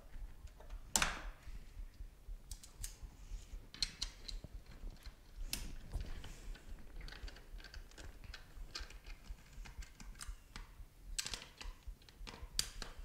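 Small clicks and taps of hand tools on plastic: a screwdriver bit handled in its case, then a red-handled screwdriver working the screws on a Sirius XM satellite radio receiver's plastic case. The sharpest click comes about a second in, with irregular lighter ticks after it.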